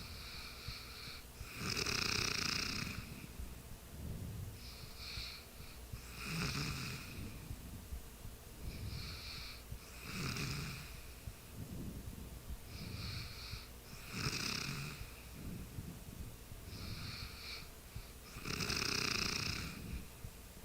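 A sleeping person snoring in a steady rhythm, with a louder snore about every four seconds and a softer breath sound between each one.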